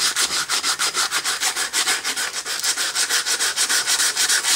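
Sandpaper scrubbing around the end of a 3/4 inch copper pipe in quick, even strokes, about five or six a second, cleaning the dull surface back to bright metal for soldering.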